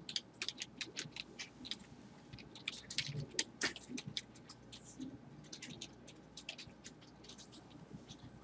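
Typing on a computer keyboard: quick, irregular keystroke clicks, faint overall and busiest about three to four seconds in.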